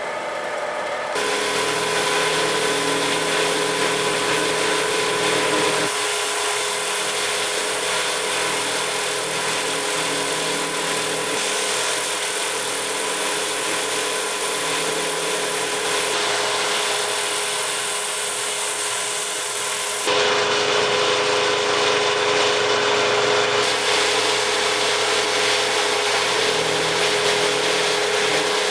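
Milling machine cutting a solid 6061 aluminum billet with an end mill: steady machining noise with a constant whine running through it. The sound shifts abruptly about a second in, again near six seconds and near twenty seconds.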